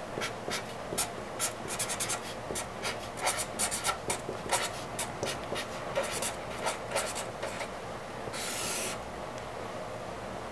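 Pen writing on a sheet of lined paper laid on a wooden desk: a run of short, quick scratching strokes as words are written, with one longer scratch near the end.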